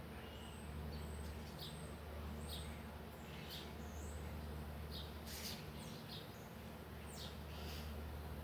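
Baby squirrel chirping and squeaking: short, high-pitched calls repeated irregularly, about one or two a second, over a low steady hum.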